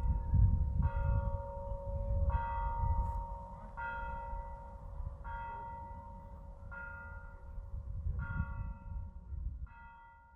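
A single church bell tolling slowly, one stroke about every second and a half, each stroke ringing on over a low rumble; the strokes grow fainter toward the end.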